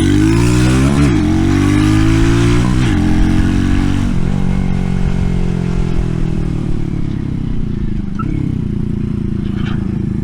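RPS Racer 140 mini bike's small single-cylinder engine running through a stainless steel side-exit exhaust while riding. The engine note climbs and drops sharply twice in the first three seconds, as with shifting up, then holds steady and slowly eases off.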